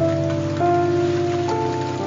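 Steady rain falling, with slow, calm music laid over it: held notes that change about half a second in and again near the end.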